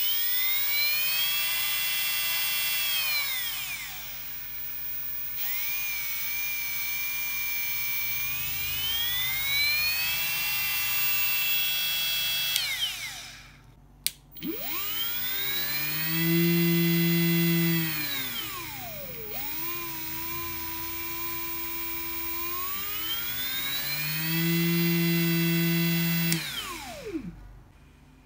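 A homemade die grinder's brushless motor whines, its pitch rising and falling as the speed is turned up and down. It stops about 13 seconds in, starts again, speeds up and slows twice more, then winds down to a stop near the end.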